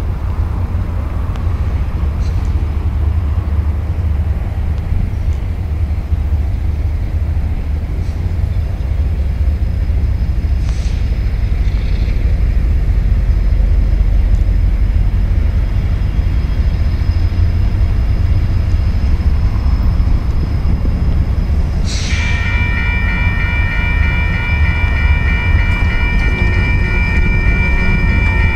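Low steady rumble, then about 22 seconds in a railroad crossing's warning bell starts ringing, a steady ring of several tones. It is the sign that the crossing has activated for an approaching train.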